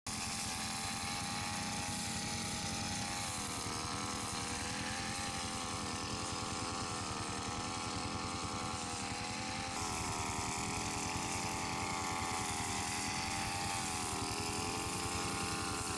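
Petrol brush cutter's small engine running steadily, its pitch wavering up and down as the throttle changes, a little louder about ten seconds in.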